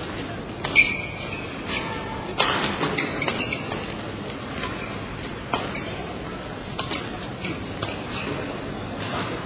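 Badminton rally in a large hall: sharp racket strikes on the shuttlecock at irregular intervals of about a second, with a brief shoe squeak on the court floor about a second in, over the hall's steady background noise.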